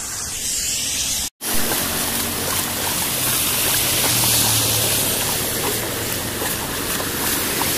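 Steady rushing of rain and floodwater running over a road, with the low hum of a passing scooter engine in the middle. The sound cuts out for a split second near the start.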